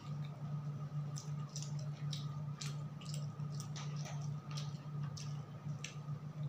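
A person chewing a mouthful of rice and pakora close to the microphone: a run of short wet, squishy mouth clicks, several a second, over a steady low hum.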